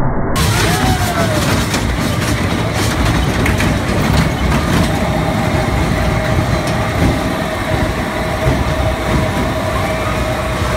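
Small dragon roller coaster train running along its steel track, a steady rumble of wheels on rail, with a thin steady whine joining about halfway through.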